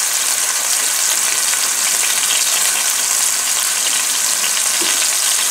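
Thin, floured boneless chicken thighs searing in very hot light olive oil: a steady, high sizzle with fine crackling spatter.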